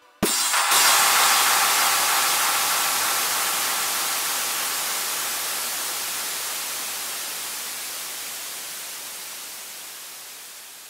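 Electronic white-noise effect that comes in suddenly with a click under a second in, then fades slowly and evenly away.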